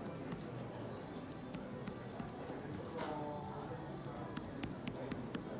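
Typing on an HP Omen X 15 laptop keyboard: irregular key clicks, several a second, over faint background music.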